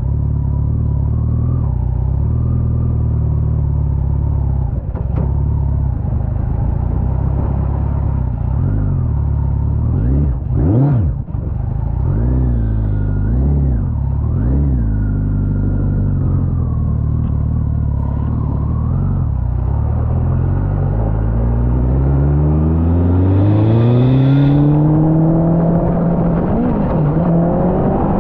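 Honda CBR1100 inline-four motorcycle engine in an off-road buggy, running at a steady low speed. It is blipped up and down several times around the middle, then revs up in one long climb that levels off near the end.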